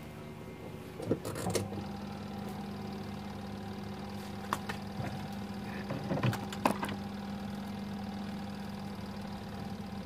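Washing machine spin-dryer motor humming steadily while powered, stalled or turning only weakly, with a few knocks and clicks as a hand handles the machine. The hum gets stronger about a second and a half in. Humming without proper spinning is the fault being diagnosed: a failing run capacitor or a problem in the motor itself.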